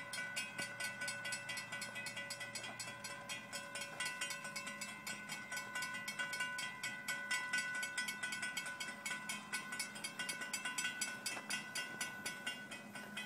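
Railroad grade-crossing warning bell ringing fast and evenly, several strikes a second, as the crossing signals activate to warn of an approaching train.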